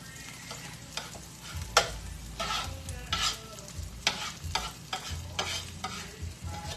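Spatula scraping and stirring eggs in a hot skillet, irregular scrapes over a light sizzle, with one sharp clack a little under two seconds in.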